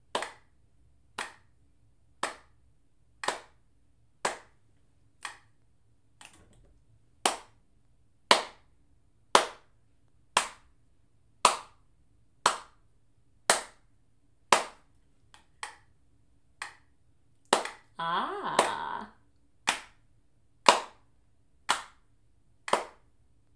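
Hand claps keeping a steady beat of about one clap a second, a 60-beats-per-minute pulse clapped as a rhythm exercise. A brief vocal sound comes in about two thirds of the way through.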